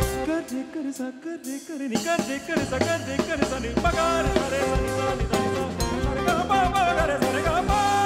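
Fusion rock band playing live: a male lead vocal over electric bass, electric guitar and drums. For the first two seconds the bass and drums drop out, leaving the voice and guitar, then the full band comes back in.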